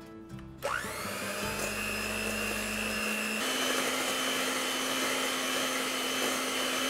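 Electric mixer mixing cake batter: the motor spins up with a rising whine shortly after the start, runs steadily, and steps up to a higher speed about halfway through.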